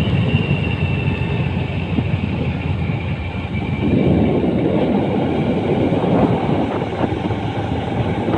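Small motorcycle running along at road speed: engine and exhaust under a steady rush of wind and road rumble. The rumble gets rougher and louder about four seconds in.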